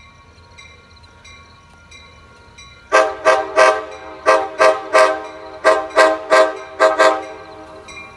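Amtrak Pacific Surfliner locomotive's multi-chime air horn, loud and in a chord of several notes. Starting about three seconds in, it plays a rhythmic tune of about a dozen short blasts: a horn show as the train approaches.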